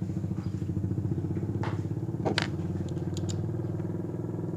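A small engine idling steadily in the background with a pulsing hum, and a few sharp clicks and taps as a ratchet screwdriver and screw are handled.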